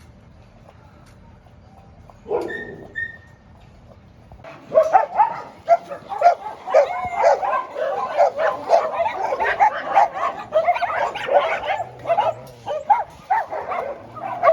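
Many dogs barking and yipping at once, a dense overlapping chorus that starts about four seconds in after a quiet opening.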